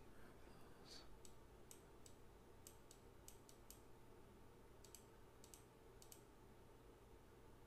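Faint computer mouse clicks, about a dozen, irregularly spaced, over a steady low hum of near-silent room tone.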